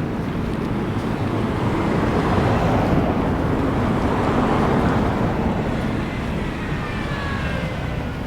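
A road vehicle passing, its noise swelling to a peak mid-way and then fading, with a faint falling whine near the end. Steady low wind rumble underneath.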